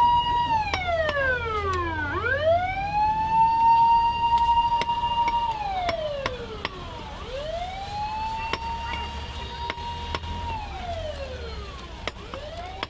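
A siren wailing: it holds a high tone, slides down, then swoops quickly back up, about every five seconds, growing fainter. Under it, the sharp knocks of a butcher's knife chopping goat meat on a wooden block.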